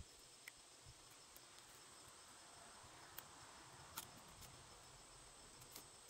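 Near silence: a faint steady chirring of crickets, with a few faint ticks as a pocket knife's straight blade shaves wood.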